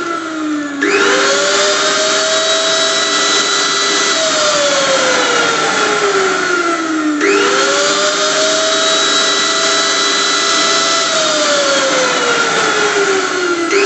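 Electric blender motor running with a loud whine over a dense whirring noise. The pitch jumps quickly up to a steady level about a second in and again about halfway through; each time it holds for a few seconds, then sinks slowly for about three seconds before it jumps up again.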